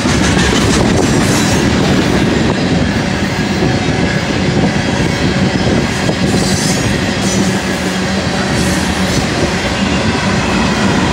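Herzog ballast hopper cars of a BNSF maintenance train rolling past close by: a loud, steady rumble of steel wheels on rail with clickety-clack over the joints. Near the end the train's rear diesel locomotives reach the spot.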